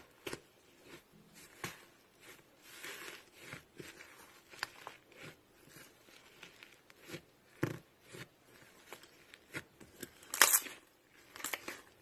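Slime being handled, giving irregular small clicks, pops and crackles, with a louder cluster of crackles near the end.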